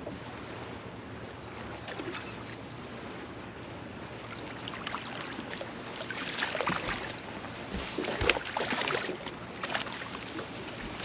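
Steady wind and water lapping at a boat, then from about halfway a hooked bass splashing and thrashing at the surface beside the boat, loudest about eight seconds in.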